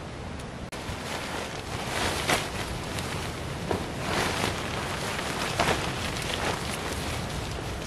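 Nylon tent rainfly rustling in several short bursts as it is shaken out and draped over a dome tent, over a steady hiss of wind.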